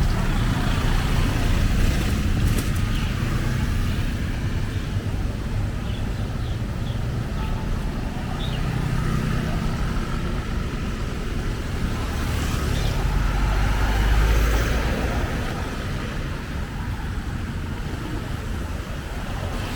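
Street traffic going by, with one vehicle passing close and loudest about thirteen to fifteen seconds in.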